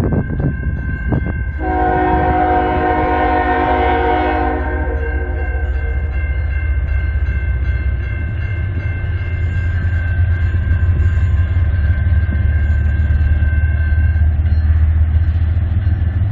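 Approaching diesel freight locomotive sounding its horn in one long blast of about three seconds, starting just under two seconds in, then beginning another blast at the very end. Between the blasts the locomotive's low rumble grows louder, over the steady ringing of the grade-crossing bell.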